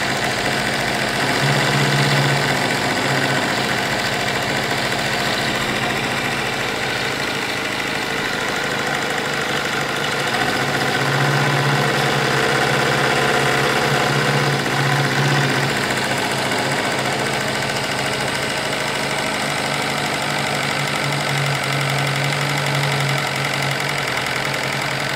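Homemade twin-cylinder, double-acting brass steam engine running fast and steadily on high boiler pressure, a rapid even mechanical clatter. A low hum swells and fades three times.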